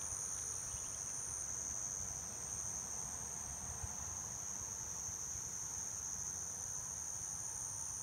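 Steady, high-pitched drone of a background insect chorus: two even, unbroken high tones with no pauses or pulses.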